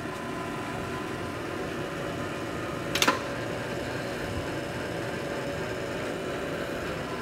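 Hardinge HLV-H toolroom lathe running with its carriage under power feed on the leadscrew, half nut engaged for threading and feeding back: a steady motor and gear hum. A single sharp click comes about three seconds in.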